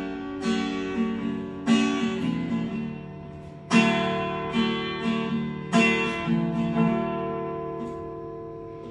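Background music: an acoustic guitar playing an instrumental passage of a song without vocals, chords struck about every two seconds and left to ring out, getting quieter toward the end.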